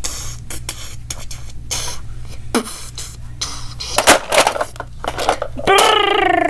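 Hard plastic toy cars clattering and scraping as they are handled, with a cluster of louder knocks about four seconds in as one is set down on another. Near the end a voice makes a long falling sound.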